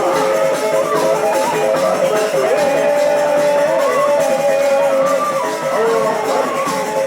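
Music with a wavering, sliding melody line over dense, shaken percussion.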